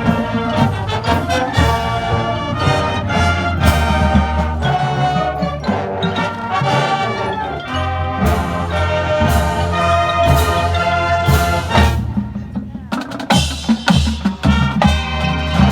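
Marching band playing, brass and percussion together with a steady beat. About twelve seconds in the sound thins briefly, then returns with sharp percussion hits.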